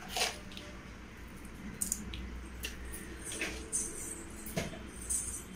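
A few scattered light clicks and knocks from a plastic jar of coarse salt and its screw lid being handled and set down, over a faint steady low hum; the firmest knock, with a dull thud, comes about four and a half seconds in.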